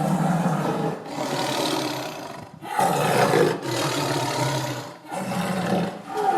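Tiger roaring: a run of deep, long roars, each a second or more, separated by short breaks.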